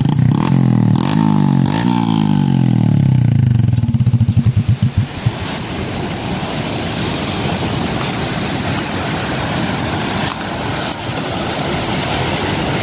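Motorcycle engine running and revving, its pitch rising and falling, for about five seconds. It then cuts out, leaving a steady rushing noise.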